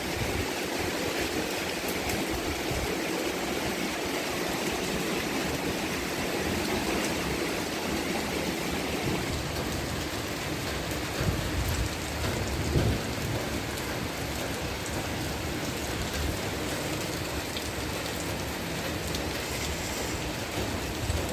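Rain falling steadily and evenly, with two brief louder bumps a little past halfway.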